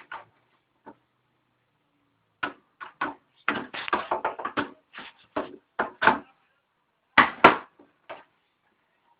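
Irregular knocks, taps and clatter of tools and hands working on a television set's casing while taking it apart: a dense run of strikes around four seconds in and two loud knocks near the end.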